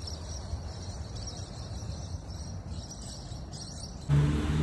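Steady high chirring of insects with a low rumble underneath. About four seconds in, a louder steady low hum cuts in.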